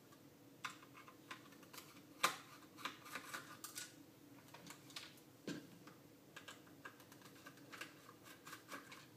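Small screwdriver taking screws out of a RigExpert AA-200 antenna analyzer: a run of irregular small clicks and ticks of metal on screws and the plastic case, with one sharper click a little over two seconds in.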